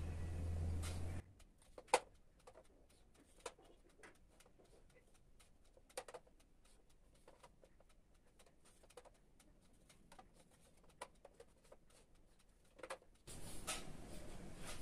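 Scattered light clicks and taps of a marker and a drafting-machine scale against a whiteboard as lines are ruled, the loudest about two seconds in; in between, near silence.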